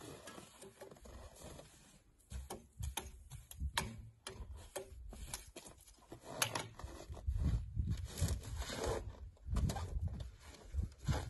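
Irregular clicks, knocks and scrapes of a person working over a snow-covered International Harvester T-9 crawler and climbing onto its seat; the engine is not running. Low rumbling bursts grow more frequent in the second half.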